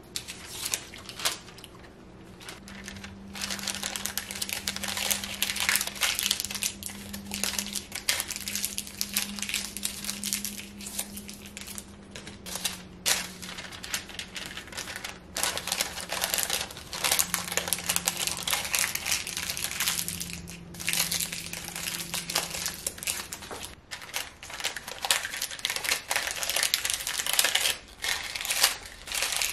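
Baking paper crinkling and rustling as squares of it are folded and twisted around pieces of homemade chocolate toffee, in irregular bursts with a few brief pauses.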